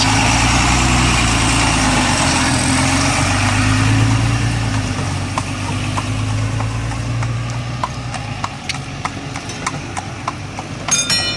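A motor vehicle's engine running close by, loud for the first several seconds and then fading away, over the steady clip-clop of a horse's hooves on pavement, the hoofbeats standing out clearly once the engine fades.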